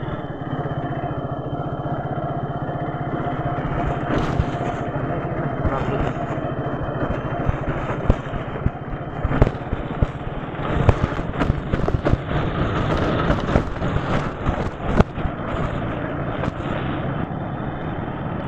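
Motorcycle engine running steadily while riding, with road and wind noise and a series of sharp knocks in the second half.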